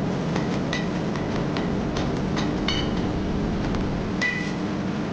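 Forge running with a steady rushing noise as a clamped billet of stacked steel bars heats in it. Light, ringing metal clinks come every half second or so, the clearest about three quarters of a second in, near two and three quarter seconds, and near the end.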